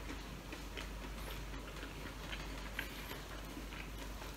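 Faint eating sounds of someone eating chicken with their hands: a scattering of soft mouth clicks from chewing and small ticks from handling the food, several in all.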